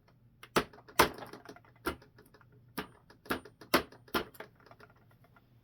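Sharp clicks and knocks of hard plastic model-tank parts being handled and pressed together, about seven loud ones at irregular intervals with fainter ticks between.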